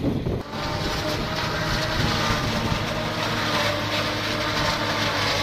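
Forage harvester running steadily while chopping corn for silage and blowing it into a trailer: a constant engine drone with a steady humming tone over the rush of the chopped crop, starting just after half a second in.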